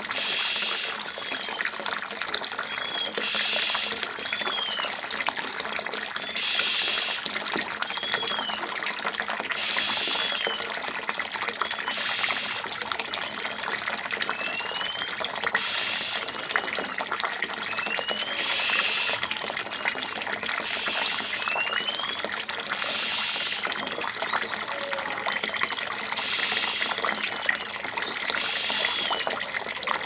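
Steady trickle of running water in a shallow bird bath, with an Oriental magpie-robin splashing as it bathes. Short high notes recur every few seconds.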